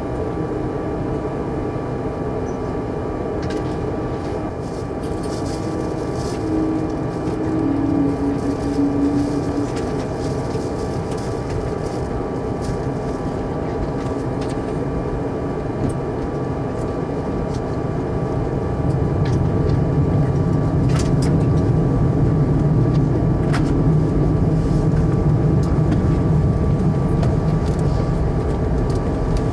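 Steady jet-engine and airflow roar inside the cabin of a Boeing 747-400. A few faint clicks come through, and the low rumble grows louder about two-thirds of the way through.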